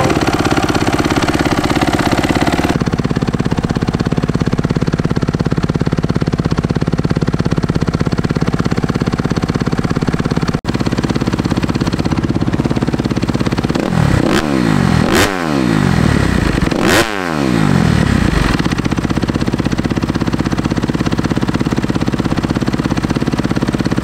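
2020 Kawasaki KX250's four-stroke single-cylinder engine running through a Pro Circuit Ti-6 titanium full exhaust system, idling steadily. A little past the middle it is revved sharply twice, the pitch rising and falling back each time, before settling to idle again.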